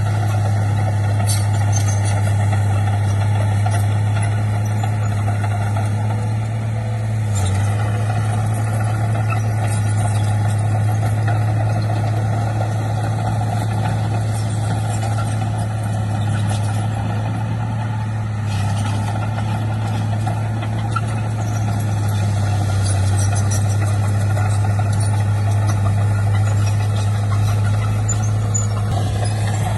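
Heavy diesel engine of earthmoving machinery, a bulldozer or dump truck, running steadily at a constant low pitch, with a few light knocks.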